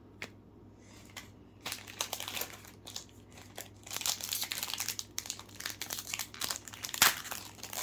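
Plastic trading-card pack wrapper being crinkled and torn open: a run of crackling rustles starting about a second and a half in, with a sharp snap near the end.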